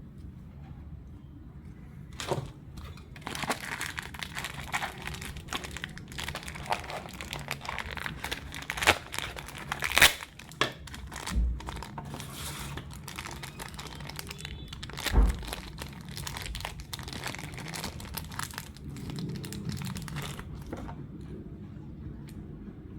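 Plastic packaging crinkling and tearing as a Beyblade spinning top is unpacked by hand, with irregular crackling and a few sharp clicks and knocks, the loudest about ten seconds in and again near fifteen seconds.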